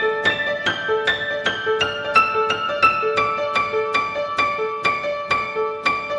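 Upright piano played in a quick, even run of single notes, about four a second, with one middle note coming back again and again under an upper line that steps higher about halfway through. It is a free improvisation recorded on a cell phone.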